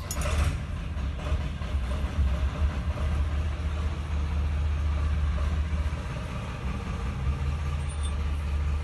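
An engine running steadily with a low rumble.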